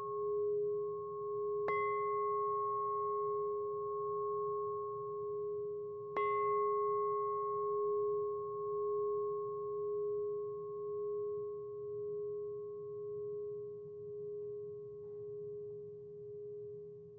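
A tall hanging metal bell struck twice with a wooden-headed mallet, about four and a half seconds apart. It rings on with a low, wavering hum that slowly fades.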